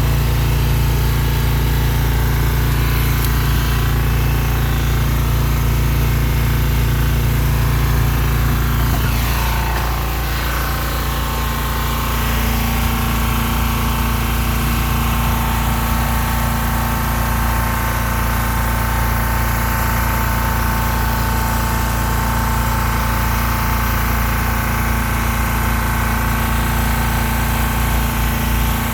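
Toyota 7FBE18 electric forklift running: a steady mechanical hum with several held tones, which shifts about ten seconds in as some tones drop away and a new one comes in.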